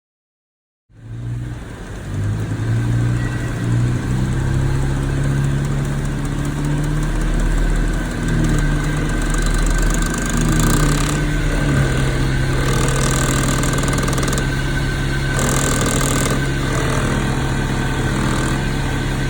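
Car engine idling, cutting in about a second in, its pitch wavering at first and then holding steady; the car is one being checked for major clicking noises and vibrations.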